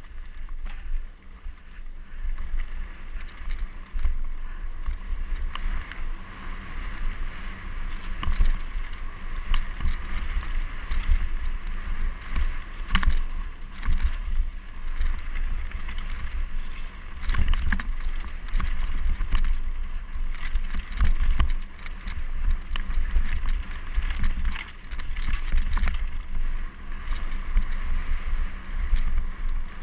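Mountain bike riding fast over a rough dirt trail, heard through a bike-mounted GoPro HD Hero: a constant low rumble with frequent sharp knocks and rattles as the bike jolts over bumps.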